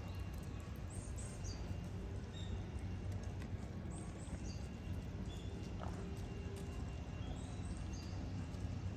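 Outdoor ambience: a steady low rumble, with small birds giving groups of short, high chirps about a second in, around four seconds in and again near the end.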